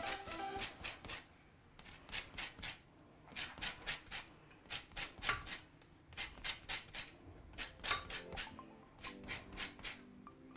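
Lemon rind being grated on a flat metal hand grater: quick rasping strokes in short runs, separated by brief pauses. The grating takes only the green zest and stops short of the white pith.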